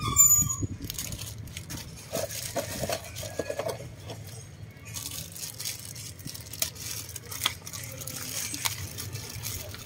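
Clear plastic bag crinkling and rustling as it is handled and opened by hand, loudest in the second half, with a few short clicks.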